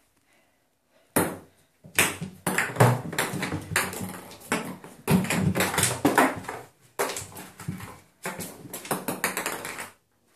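Ping pong ball bouncing and skittering around an empty bathtub as a cat bats it, making a fast, irregular run of light clicks and taps. The clicks start about a second in and stop just before the end, with a few brief pauses.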